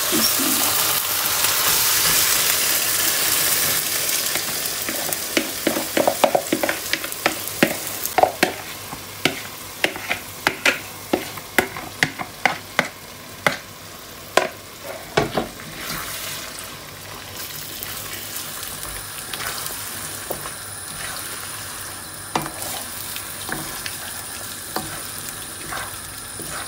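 Yogurt-marinated chicken going into hot oil and fried masala paste in a non-stick pan, sizzling hard at first. Then comes a run of sharp taps as a spatula scrapes the marinade out of a plastic bowl over the pan, and the sizzle settles lower while the chicken is stirred.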